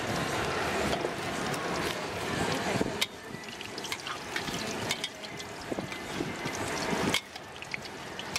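Beaten egg with pork deep-frying in hot oil in a steel wok, sizzling steadily, with sharp clicks and scrapes of a metal ladle against the wok. The sizzle drops in level about three seconds in.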